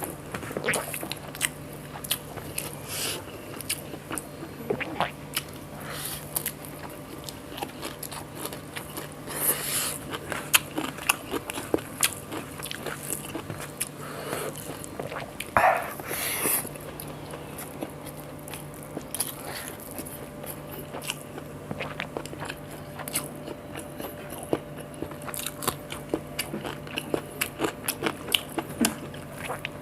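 Close-up eating sounds: chewing a meal of rice, egg omelette and coriander chutney, with many short, irregular wet smacks and clicks of the mouth and an occasional crunch. A steady low hum runs underneath.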